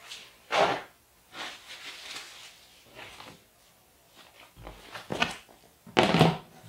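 Plastic lid being handled and set down onto a plastic storage tub: scattered knocks and rustles, with the loudest clatter and a dull thud near the end as the lid goes on.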